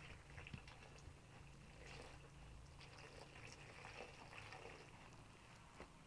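Faint trickle of water poured from a metal jug into flour in a plastic basin, with a hand working the wet flour into dough.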